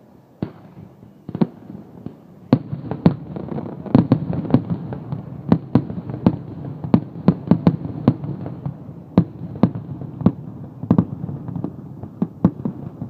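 Fireworks display: aerial shells bursting in a string of sharp bangs over a low rumble. The bangs are few at first and come thick and fast from about two and a half seconds in.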